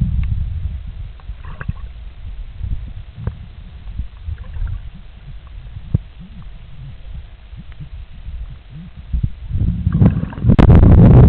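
Muffled underwater noise picked up by a submerged camera in shallow sea water: a low rumble of moving water with scattered knocks and bumps from handling. A louder rushing surge comes in near the end.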